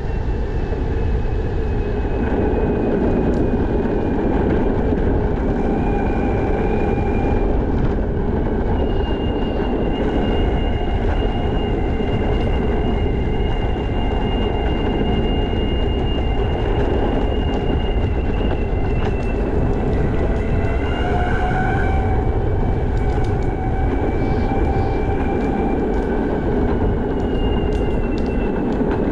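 Backfire Zealot electric skateboard rolling along pavement: a steady wheel and road rumble with a thin high motor whine whose pitch drifts slowly up and down as the speed changes.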